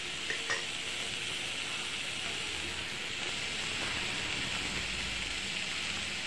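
Chopped onions, green chillies and curry leaves sautéing in oil in an aluminium kadai, a steady soft sizzle, with two faint clicks about half a second in.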